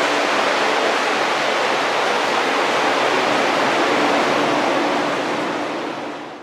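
Grow-room ventilation fans blowing: a steady, loud rushing of air with a faint low hum, fading out near the end.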